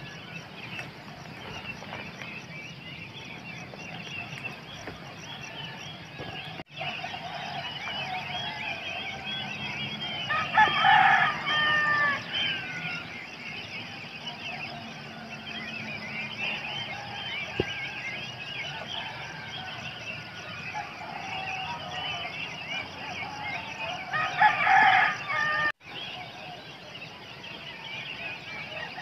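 A rooster crows twice, about ten seconds in and again near twenty-five seconds, over the steady chirping of many small birds.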